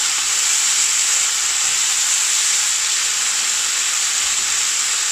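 Chicken and onion shashlik skewers sizzling steadily in butter ghee on a hot cast-iron grill pan while being pressed down with metal tongs.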